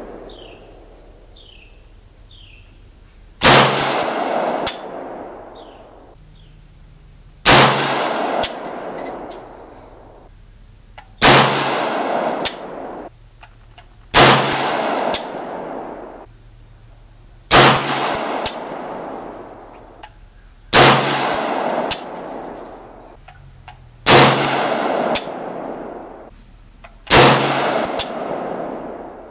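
AR-15 rifle firing .223 rounds in slow aimed single shots: eight shots, one every three to four seconds, each followed by an echo that rolls on for over a second.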